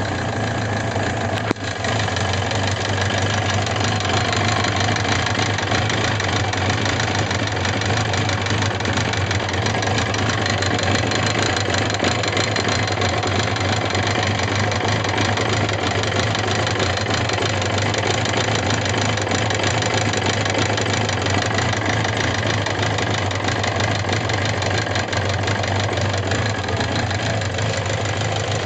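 Suzuki GSX750S Katana's air-cooled inline-four engine idling steadily with a rapid mechanical clatter and ticking (kata-kata, kachi-kachi). The noise appeared after the engine was revved hard and persists despite new rocker arms, camshafts, cam chain parts and repeated tappet clearance adjustment; its cause is unknown. A single sharp click sounds about a second and a half in.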